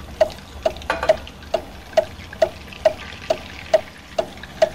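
Wooden spoon knocking against the side of a stainless steel saucepan as browning butter is stirred, an even knock about twice a second, over the sizzle and bubbling of the butter.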